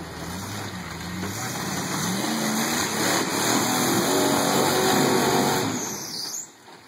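Flat-fender Jeep's engine revving under load as it crawls up a rock ledge, rising in pitch and getting louder as it pulls close, then dropping off suddenly near the end.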